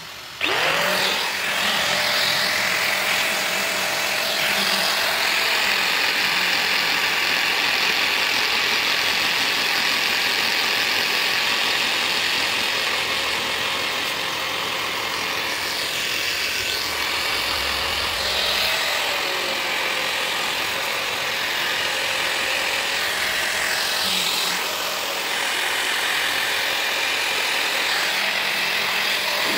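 Electric angle grinder starting up about half a second in and grinding a weld seam on stainless steel sheet with an abrasive disc: a steady motor whine over harsh grinding noise, the pitch dipping briefly a few times as the disc is pressed into the weld.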